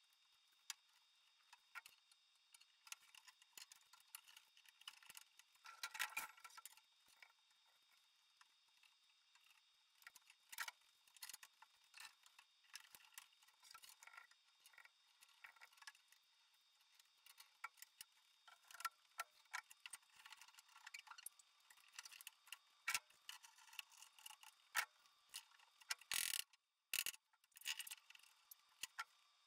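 Faint, scattered clicks and taps of a woodworking glue-up: thin wooden slats being stacked and pipe and bar clamps being set on a workbench. A few louder knocks come about six seconds in and again near the end.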